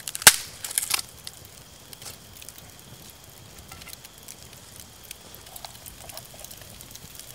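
Campfire crackling: a burst of sharp pops in the first second, then scattered, quieter crackles.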